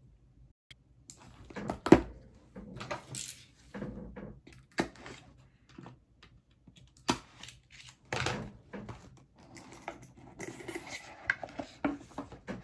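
Cardboard product box being handled and opened with a utility knife: irregular taps, clicks and scrapes as it is flipped and its seal is cut, with denser rustling near the end as the lid comes off and the bag inside is touched.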